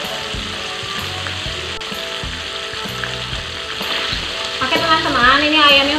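Flour-coated chicken pieces deep-frying in hot oil in a wok: a steady sizzle, stirred now and then with a spatula. Near the end a voice comes in over it, louder than the frying.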